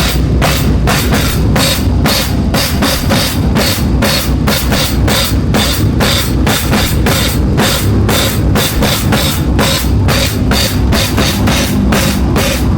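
Loud drumming with cymbals and bass drum: a fast, steady pulse of hits, about four a second.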